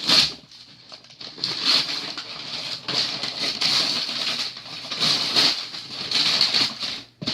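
Wrapping paper being torn and crumpled off a gift box by hand: irregular rustling rips and crackles.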